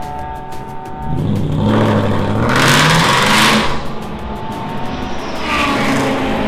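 Race car accelerating past, its engine pitch rising and a loud rush as it goes by about three seconds in; a second car accelerating near the end.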